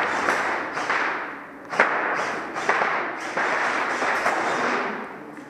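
Airsoft guns firing indoors in several bursts of rapid, sharp cracks, with one hard knock about two seconds in.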